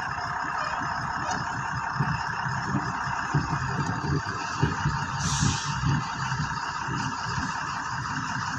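Diesel truck engine running as the truck reverses slowly. A short hiss of air comes about five seconds in.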